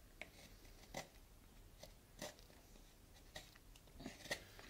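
A carving knife taking short cuts from the inside edge of a hollowed wooden horn section: about seven faint, quick scrapes, irregularly spaced, the clearest about a second in and near the end.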